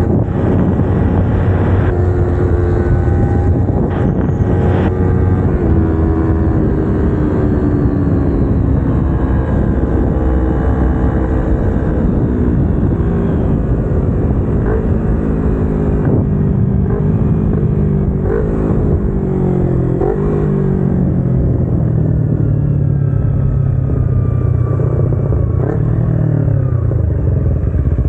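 Kawasaki Ninja 250R's parallel-twin engine running on the road. Through the second half its pitch slides down in stages, with a few short upward kicks between them, as the bike slows and changes down.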